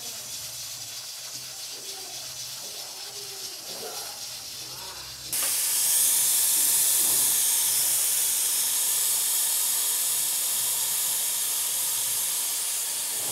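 Aluminium pressure cooker hissing steam. About five seconds in, a much louder, steady high rush of steam starts suddenly: the cooker's pressure being let out through the open vent, its weight taken off.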